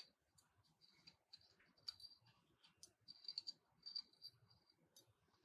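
Faint clicking and short light scraping of small metal carburetor parts being handled, as the float tab of a Bendix Zenith carburetor is bent to reset the float height.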